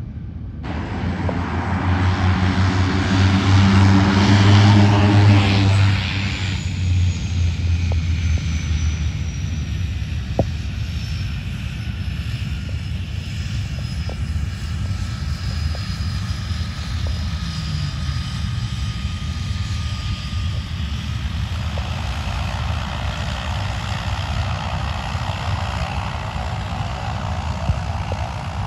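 Turboprop aircraft engines and propellers running with a steady low drone, loudest in the first few seconds, over which a faint high whine falls slowly in pitch.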